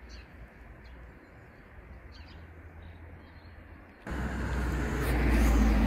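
Street ambience: faint bird chirps over a low hum of distant traffic. About four seconds in a much louder rush of road traffic starts, with a low engine note.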